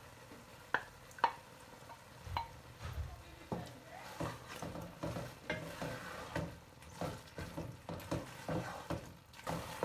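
Wooden spoon stirring thick minced-meat keema with tomato paste in a metal pot, scraping and knocking against the pot. A few separate knocks come first, then from about three and a half seconds the stirring turns steady and busier, several strokes a second.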